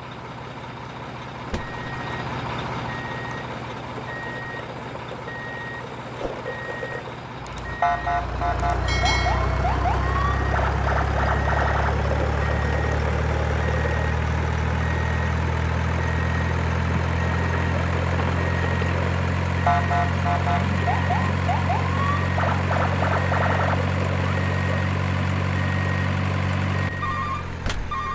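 Truck engine running steadily, getting louder about eight seconds in and dropping back near the end, with a high electronic beep repeating at an even pace like a reversing alarm. Two short flurries of higher tones and rising chirps come about 9 and 20 seconds in.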